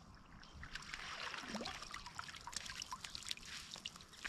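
Faint water trickling and splashing as a yabby net is pulled in through shallow dam water and lifted out dripping.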